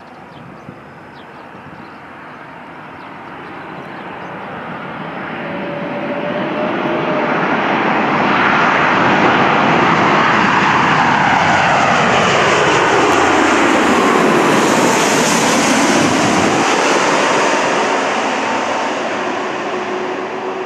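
An Airbus A330-200's two Rolls-Royce Trent 700 jet engines at approach power as the airliner flies low overhead. The noise builds steadily, is loudest as it passes, and then eases, with a sweeping tone that drops in pitch.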